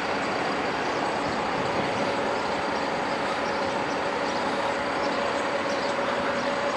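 Steady outdoor street noise: an even, unbroken rush with a constant faint hum.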